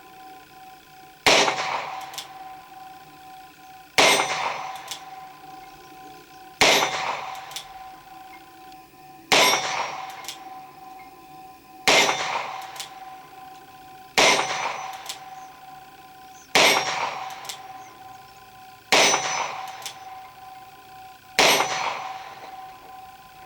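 Cimerron Model P Jr .22 LR single-action revolver fired nine times at an even pace, about one shot every two and a half seconds. Each shot is followed by a long, fading metallic ring, as from a struck steel target.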